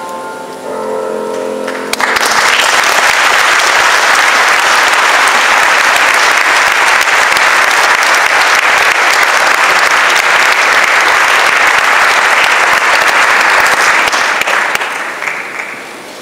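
Grand piano's last notes ringing and dying away, then an audience applauding, starting suddenly about two seconds in and tapering off near the end.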